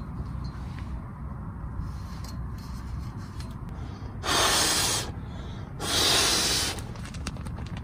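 Two loud swishing rustles, each just under a second and about a second apart, from a puffy nylon-shelled sleeping bag or jacket being handled, over a low steady rumble.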